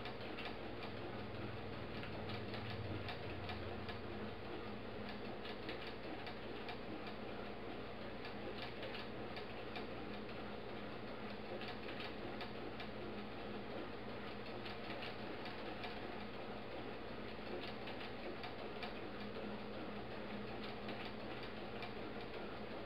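Soft, irregular ticking and clicking from the mechanism of a mechanical flapping-bird kinetic sculpture as its wings slowly beat, over a steady low hum.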